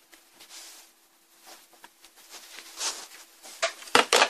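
Faint handling noises over a steady low hum, then near the end two sharp clicks close together: the power relay on a Samsung plasma TV's power supply board switching as the set is turned on by remote.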